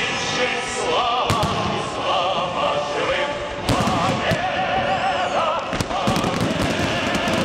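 Fireworks shells bursting in sharp bangs, more of them in the second half, over loud music with a sung vocal.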